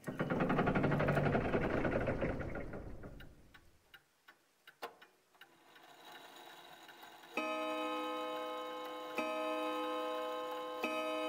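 Sound effects of a fantasy planetarium machine starting up. A loud mechanical whirring rush fades out over the first few seconds, then a few clicks. Then comes a steady ringing chord of chime-like tones that strikes afresh about every second and three quarters.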